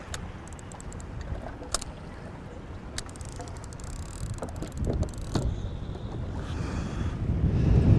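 Strong wind buffeting the microphone on a small boat, as a low rumble that swells toward the end, with a few scattered clicks and light knocks.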